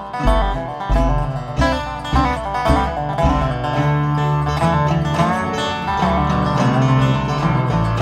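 Live band playing a bluegrass-style tune on plucked strings over a bass line, with no singing.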